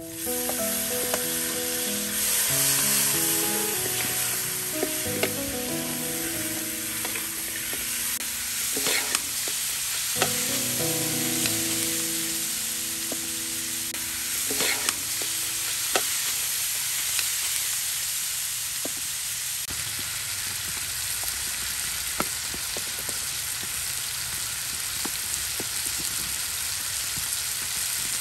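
Chicken pieces sizzling in a large steel wok while a metal spatula stirs them, with a steady frying hiss and a few sharp clicks of metal scraping against the wok.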